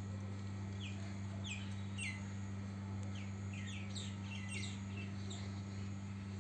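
A small bird chirping: short chirps that fall in pitch, coming in quick irregular bunches, over a steady low hum.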